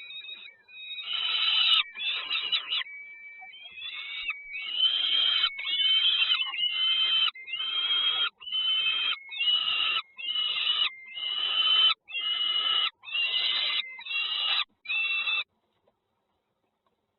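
Bird calls: a run of harsh, raspy calls repeated about once a second, which stop abruptly near the end.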